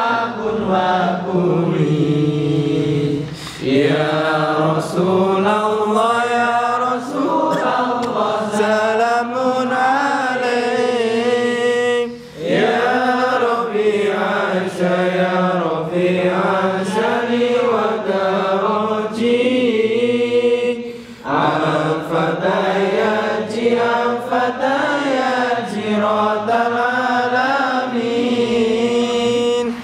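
A group of men chanting an Arabic devotional song together, unaccompanied, in long drawn-out melodic phrases with a brief pause for breath about every nine seconds.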